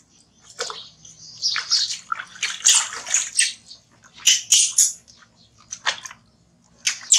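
Water splashing in a plastic basin as a baby monkey is dipped and rinsed by hand, in a string of irregular splashes with short quiet gaps between.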